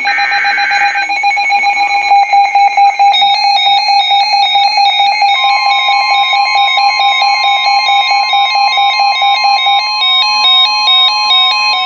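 NOAA Weather Radio alert starting: a last burst of the SAME data header in the first second, an electronic alarm beeping rapidly in a stepping pattern of tones, and from about five seconds in the steady 1050 Hz weather radio warning tone joining it. These are the signals that announce the next warning, a flood warning.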